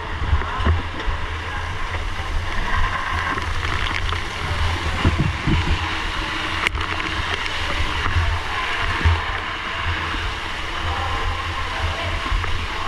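Steady rushing noise of a firefighting scene, with water spraying and splashing over a wavering low rumble.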